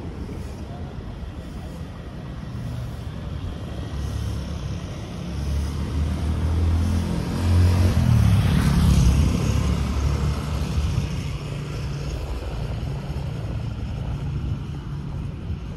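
A motor vehicle driving past: its engine and tyre noise build over several seconds, are loudest about halfway through, then fade back into steady traffic rumble.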